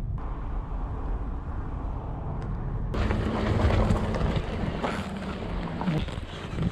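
Car on the road: a steady low rumble of engine and tyre noise, which turns louder and rougher about three seconds in.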